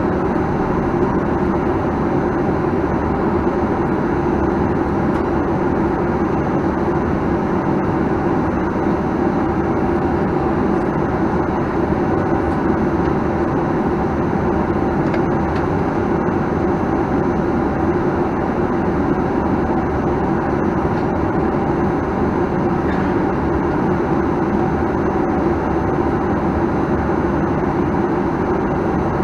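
Steady cabin drone of a Boeing 737-900ER taxiing, its CFM56-7B engines running at taxi power with a constant hum, heard from inside the passenger cabin.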